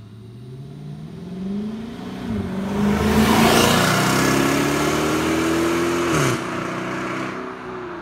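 Dodge Charger with its mid mufflers deleted, accelerating past: the exhaust note climbs, drops at a gear change about two seconds in, is loudest as the car goes by, then drops again at another upshift near the end and fades as it drives away.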